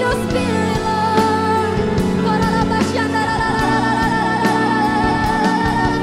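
Live contemporary worship music: women singing a drawn-out, wavering melody into microphones over a band with steady chords and drums.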